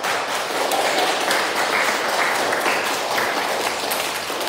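A group of children applauding after a speech, with steady clapping from many hands that eases off a little near the end.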